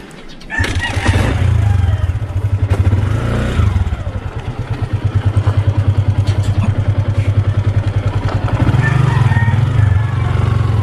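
Motorcycle engine started on the electric starter about half a second in, catching at once and then running at idle with a steady low pulsing beat.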